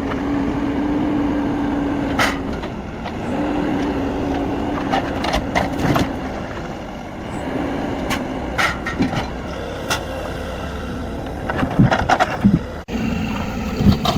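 Heavy forestry machine's engine running, its steady hum fading and returning, with scattered knocks and clunks of logs being handled, thickest about five seconds in and again near the end.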